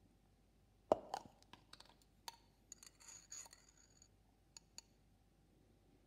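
Metal spatula clicking and scraping against a glass jar and glass test tube while a few grains of sugar are scooped out and dropped in. A sharp click about a second in, then scattered light ticks and a short scrape with faint ringing.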